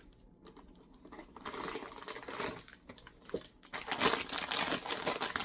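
Blind-box packaging being handled and unwrapped: plastic crinkling and rustling, faint at first and growing into a louder, dense crackle about two thirds of the way in.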